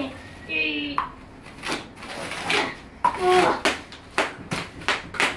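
Plastic bubble wrap being popped under a child's hands and stamping feet: a run of sharp pops that come faster in the second half, with a child's voice twice in between.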